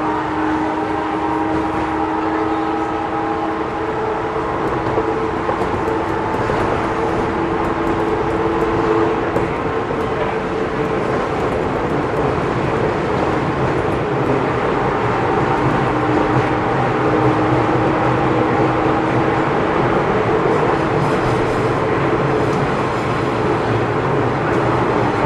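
Cabin running sound of an Odakyu 1000 series commuter train in a subway tunnel. Steady wheel-on-rail rumble is joined by the whine of the train's original VVVF inverter motor drive, which fades out about ten seconds in and returns, slightly different in pitch, after about sixteen seconds.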